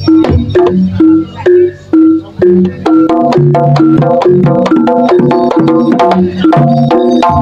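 Live jaranan accompaniment music: a stepping melody of held, pitched, organ-like notes over quick drum strokes. The playing is sparse at first and turns denser and continuous from about three seconds in.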